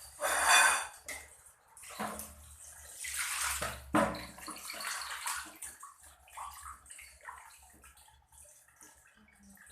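Water splashing and sloshing in irregular bursts as fish are being washed clean, loudest about half a second in and again around three to four seconds in.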